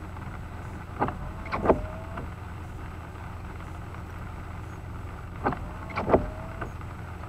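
Car windshield wipers making two sweeps across the rain-wet glass about four and a half seconds apart. Each sweep gives a few knocks and a short rising squeak of the blade, over a steady low cabin hum from the stopped car.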